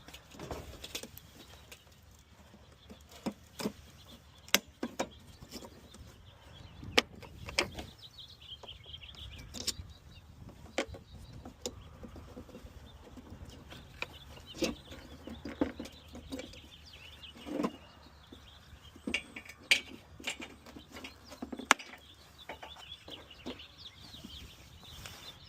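Scattered sharp clicks and knocks, one every second or two, of tools and plastic and metal parts being handled during radiator and headlight removal. Birds chirp faintly in the background.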